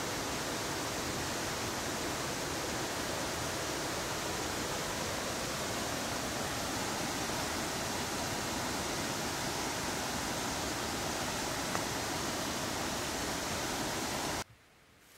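Steady, even rushing noise that cuts off abruptly near the end.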